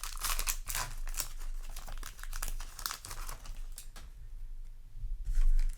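Foil wrapper of a Yu-Gi-Oh! booster pack crinkling as it is handled, in a run of quick crackles and tearing rustles, with a louder rustle near the end.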